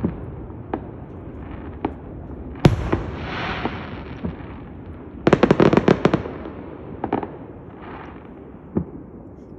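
Aerial fireworks going off: scattered bangs, one loud bang a little under three seconds in followed by a spell of crackling, then a rapid string of crackling reports about five to six seconds in and a few last bangs as it dies down.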